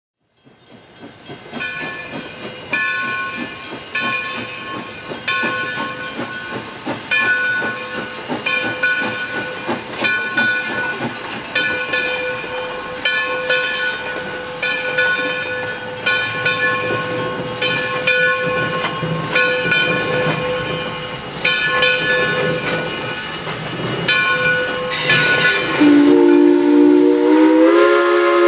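Bell of 2-8-0 steam locomotive No. 60 ringing steadily about once a second over the hiss of the approaching engine. About two seconds before the end its steam whistle opens, a chord of several tones sliding up in pitch.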